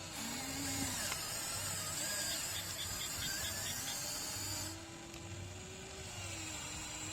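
Small electric motors of an RC excavator whining as it works, the pitch sagging and rising with the load. A higher hissing whine runs alongside until it cuts off abruptly a little over halfway through.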